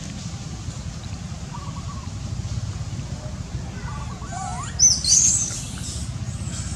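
A short cluster of high-pitched, gliding chirping calls about five seconds in, preceded by a few fainter falling calls, over a steady low rumble.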